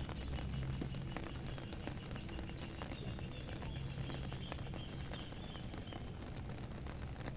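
Steady heavy rain, with many small drop hits close by.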